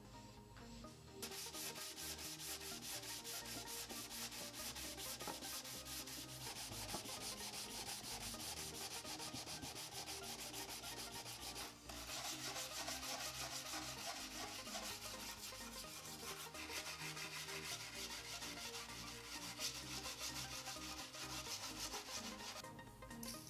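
Rust being scrubbed off the steel blade and teeth of a Japanese ryoba pull saw with sandpaper and a brass brush, in rapid back-and-forth strokes. The scrubbing stops briefly about halfway through, then carries on.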